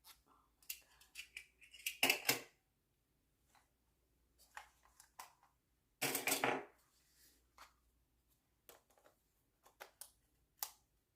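Camera box packaging being handled and opened: scattered light clicks and taps, with two louder rustling bursts about two seconds and six seconds in.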